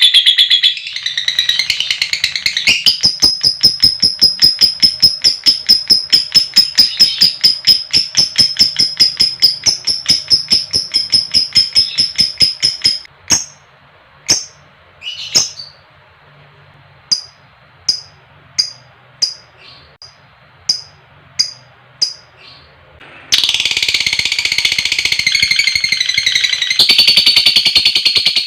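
Lovebird ngekek: a long, fast chattering trill of high notes, about five or six a second, that breaks off about halfway into single sharp chirps at roughly one and a half a second, then turns into dense high chatter near the end.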